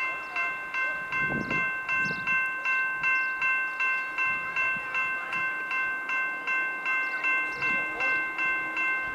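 Railway level crossing warning bell ringing: an electronic chime of several steady tones, struck evenly about twice a second, warning that a train is coming through the crossing.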